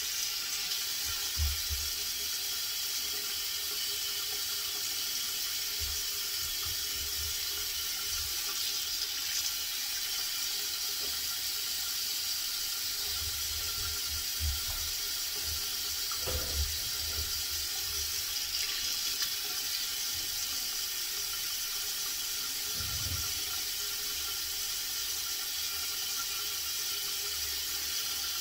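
Water running steadily from a bathroom tap, an even hiss, with a few faint low knocks.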